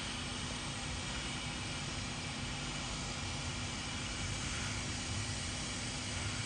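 Hot air rework gun blowing a steady stream of hot air onto a laptop motherboard's GPU chip to melt its solder for removal: a continuous, even hiss with a faint low hum underneath.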